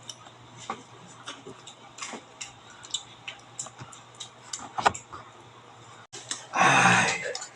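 Mud crab shell being cracked and picked apart by hand while eating: scattered small clicks and cracks, then a louder, rough crunching burst just under a second long near the end.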